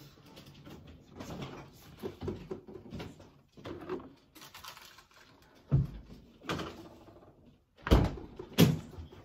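Refrigerator door opened and things handled inside it, with light rustling and knocks. Then come several thumps, the two loudest close together near the end, as the door is shut.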